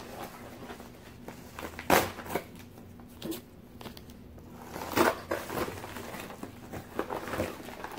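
Yellow padded paper envelope rustling and crinkling as it is handled and pulled open by hand, with sharper crackles about two seconds in, about five seconds in and near the end.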